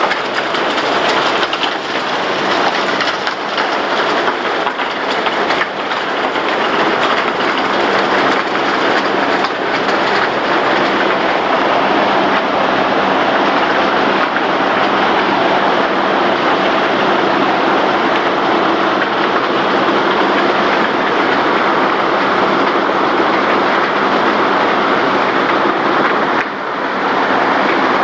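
Ore-processing plant machinery at a gold mill running: a loud, dense, continuous mechanical noise from the grinding mill and ore conveyor, with a steady low hum underneath. It briefly drops away about 26 seconds in.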